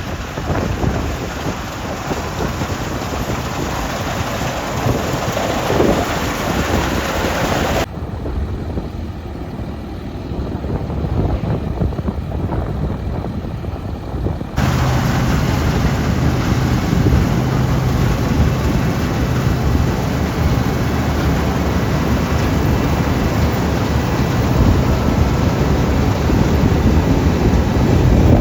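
Harvest machinery at work: combine harvester and tractor engines running with a steady low drone under heavy wind rumble on the microphone. The sound changes abruptly about eight seconds in and again near fifteen seconds, when it becomes a steadier engine hum.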